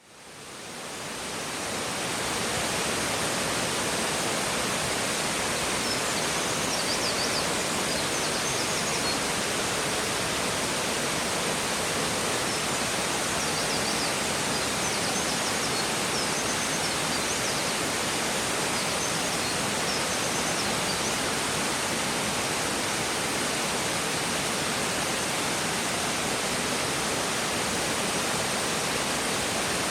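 Waterfall: a steady, even rush of falling water, fading in over the first two seconds.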